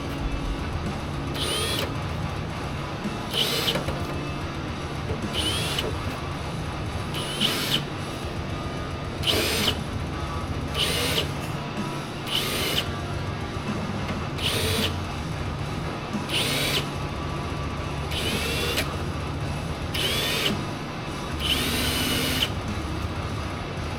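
Power drill boring holes through a car's hood: short whirring bursts about every two seconds, each with a high squeal as the bit cuts through the metal, under background music.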